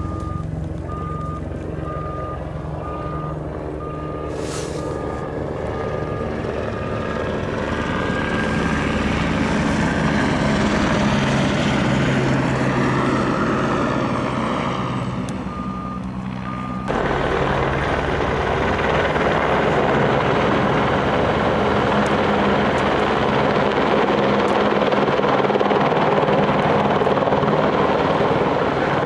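Helicopter running close by, its rotor and engine getting louder as it lifts off and flies across the slope, with a jump in loudness about halfway. A series of beeps, about two a second, sounds over it in the first part and again briefly before the jump.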